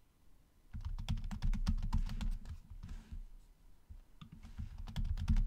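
Typing on a computer keyboard: a fast run of keystrokes starting about a second in, a sparser patch midway, then another quick run near the end.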